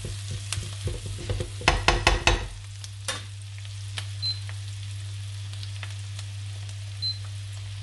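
Chopped red onion sizzling in butter and oil in a non-stick frying pan, stirred with a silicone spatula, with a quick run of knocks and scrapes against the pan about two seconds in. The sizzle then goes on steadily, and the induction hob's touch control gives two short high beeps as the heat is lowered.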